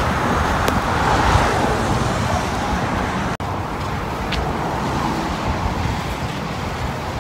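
Steady road traffic on a busy street, with a brief dropout a little over three seconds in.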